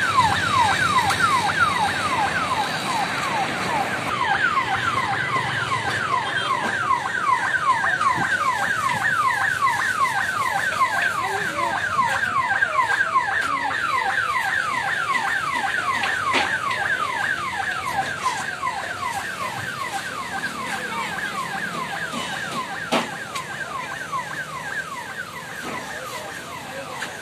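Siren of a motorcycle sidecar ambulance sounding a fast yelp: a falling tone that repeats several times a second, slowly growing fainter as the ambulance drives away.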